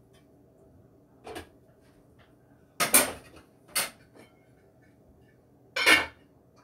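Pots and dishes being handled at a kitchen sink: a few sharp metal-and-crockery clatters with small clinks between, the loudest about three seconds in and again near the end.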